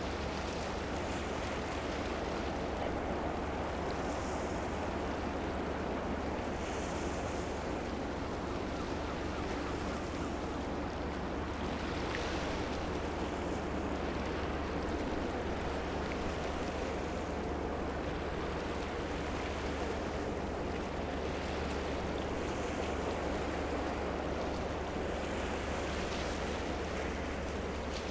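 Steady outdoor waterside ambience: wind on the microphone over an even, low hum, with no distinct event standing out.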